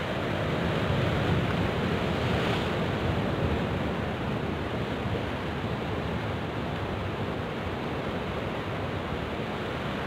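Sea waves breaking and washing against shoreline rocks, a steady surf noise, with wind rumbling on the microphone.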